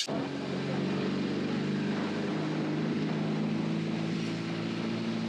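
Heavy touring motorcycle's engine running steadily at low road speed, its hum holding one pitch, under an even hiss of wind and road noise.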